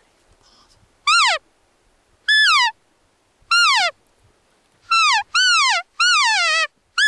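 A series of seven loud cow-elk mews, each a nasal call that slides down in pitch. They come about a second apart at first, then closer together in the second half, and one is drawn out longer.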